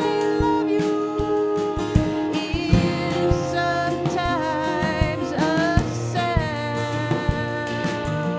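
Live folk-rock song: a woman singing over two strummed acoustic guitars, with drums keeping a steady beat.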